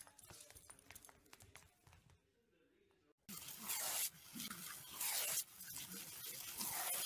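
A few faint clicks, a brief silence, then from about three seconds in a garden hose nozzle spraying a jet of water, hissing in surges.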